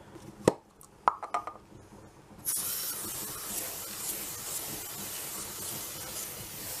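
A few sharp clicks, then an aerosol can of Bisley silicone oil spraying onto a rifle's black air cylinder: one long, steady hiss starting about two and a half seconds in.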